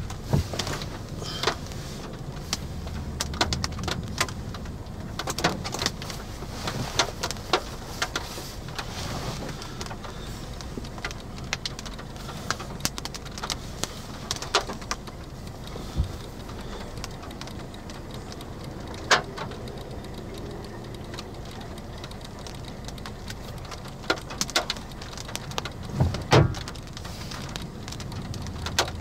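Hailstones up to golf-ball size striking the roof and body of a Subaru Crosstrek, heard from inside the car: a steady rain-like hiss broken by irregular sharp knocks. Two much louder hits come about two-thirds of the way through and near the end.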